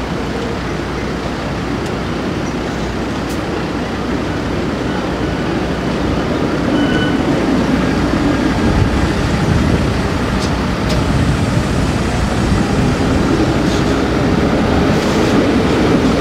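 Helsinki articulated tram passing close by: a steady rolling rumble with a low hum that grows louder from about six seconds in as the car comes alongside, with a few faint clicks.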